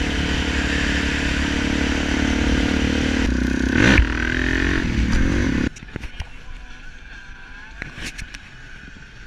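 Suzuki DR-Z400 single-cylinder four-stroke engine running steadily, with a sharp knock about four seconds in. The engine sound cuts off suddenly a little before six seconds, leaving only faint clicks.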